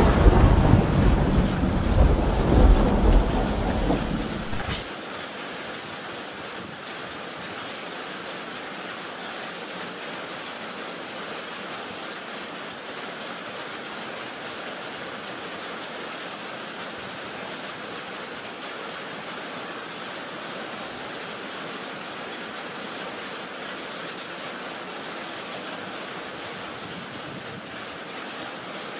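A roll of thunder rumbling low and dying away about five seconds in, then heavy rain falling steadily with an even hiss.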